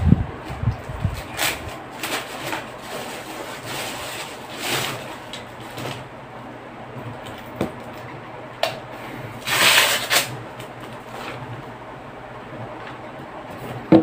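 Clear plastic packaging being handled and unwrapped: crinkling rustles in several short bursts, the loudest about ten seconds in, with a few light knocks and clicks.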